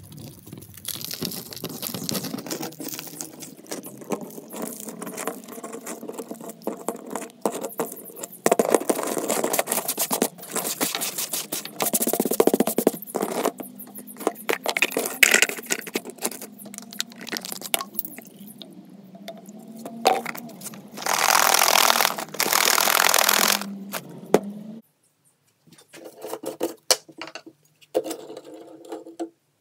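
Rusty steel chain being handled: links clinking and scraping against each other and the surface, with crumbling rust and rustling, and a couple of seconds of steady noise about three-quarters through. Near the end it turns almost quiet, with only a few clicks.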